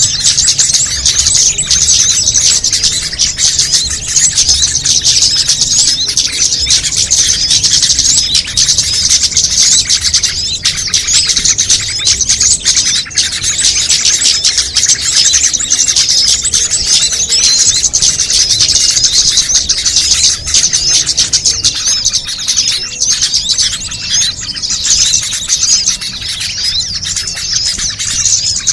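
Dense, continuous chorus of many small songbirds calling over one another in rapid high-pitched chirps and trills: a mixed bird-lure recording meant to draw small birds in.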